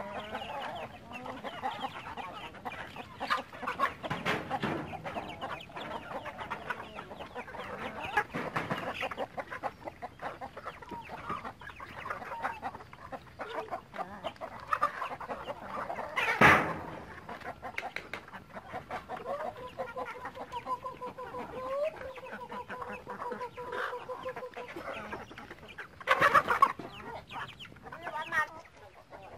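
A flock of domestic chickens, hens and roosters, clucking busily as they crowd in to feed. There are louder squawks about sixteen seconds in and again near the end.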